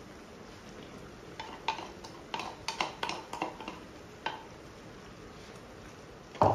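A steel ladle scraping and tapping ground chilli paste out of a wooden mortar and against a wok of pork: a quick run of sharp clacks over the first few seconds, then one louder knock near the end.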